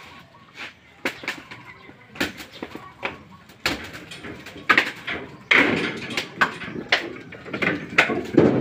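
Husked coconuts being tossed into woven bamboo baskets and onto the pile, a string of hard, irregular knocks and thuds that comes thicker and louder in the second half.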